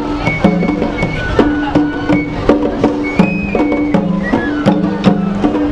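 Japanese festival parade music: taiko drums beaten in a brisk rhythm under a high flute melody, with low held tones that change in steps.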